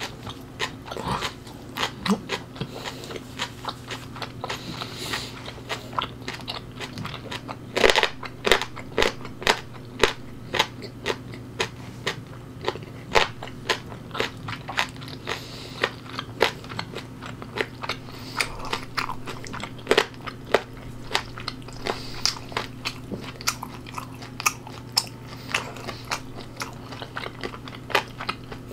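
Close-miked chewing and biting with crisp crunches, about two or three a second, from eating fermented skate with kimchi.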